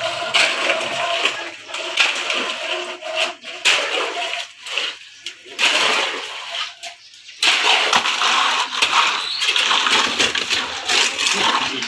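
Wet concrete pouring from a mixer truck and being spread, a rushing, splashing noise with scattered scrapes and clicks, easing off twice before picking up again.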